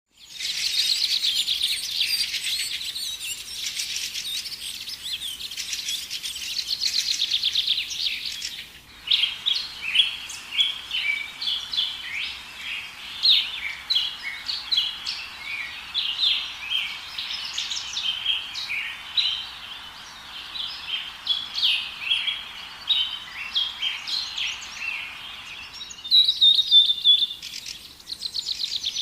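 Small birds chirping in rapid, overlapping calls. The sound changes abruptly about nine seconds in and again near the end.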